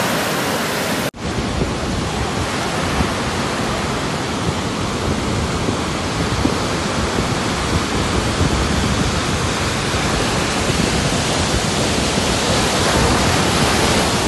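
Rough sea surf breaking on a sandy beach: a loud, steady wash of waves, with a brief dropout about a second in.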